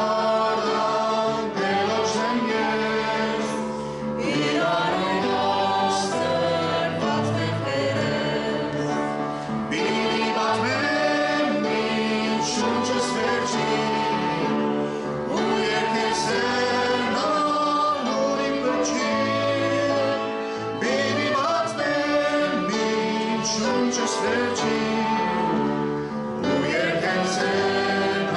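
Choir singing a hymn with instrumental accompaniment, continuous throughout.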